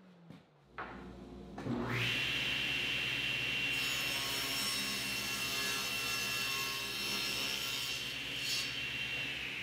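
SawStop table saw motor starting up and settling into a steady whine. A few seconds later its blade cuts through a sapele board, adding a rasping cutting noise for about five seconds. This is a light trim off the board's edge to get a tight glue seam.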